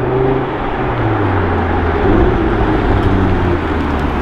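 Audi TT RS's 2.5-litre turbocharged five-cylinder engine running as the car drives up close, its note rising and falling with the throttle.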